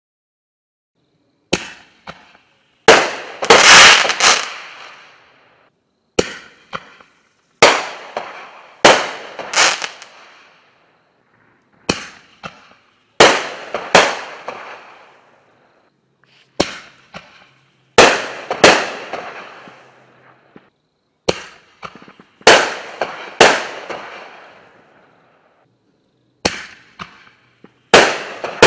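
Double-break peanut shell aerial fireworks going off one shell after another: sharp reports come in close pairs or triples, a new group every few seconds. Each group fades out over a second or two.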